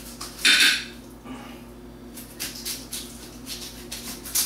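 Copper Knife kitchen knife slicing through a red onion on a ceramic plate: one loud, crisp cut about half a second in, then several fainter short cuts and taps of the blade on the plate.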